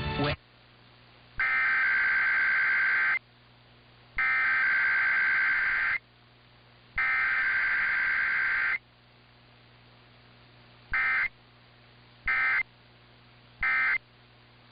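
Emergency Alert System SAME data bursts: three header bursts of warbling two-tone digital screech, each nearly two seconds long and about a second apart, then three short end-of-message bursts near the end, with a low hum in the gaps. No attention tone or voice message comes between header and end-of-message, as in a required weekly test.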